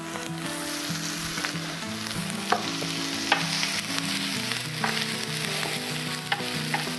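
Sliced onions sizzling steadily in hot olive oil in a frying pan, stirred with a wooden spatula that knocks against the pan a few times.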